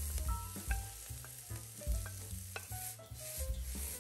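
Sliced jalapeño and diced red bell pepper sizzling gently in oil in a carbon-steel wok on medium-low heat, stirred and tossed with a wooden spatula, over quiet background music.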